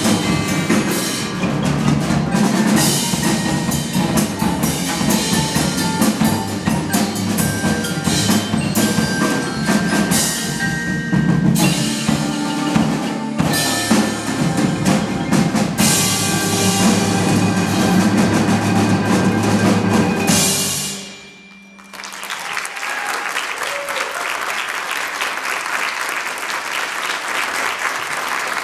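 School percussion ensemble of marimbas, xylophones and drums playing a driving rock arrangement, which cuts off sharply about 21 seconds in. The audience then applauds.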